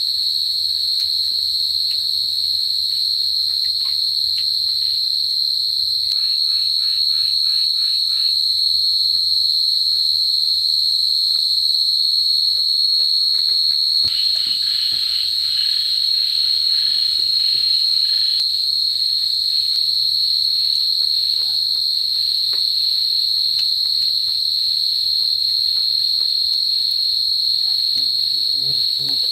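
Steady, high-pitched chorus of insects such as crickets or cicadas. A second, lower pulsing call joins briefly about a fifth of the way in and again for a few seconds around the middle.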